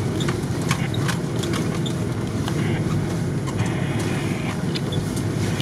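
Off-road 4x4 driving along a rough, rutted snowy track, heard from inside the cab: a steady low engine and drivetrain drone with scattered knocks and rattles as the body jolts over bumps.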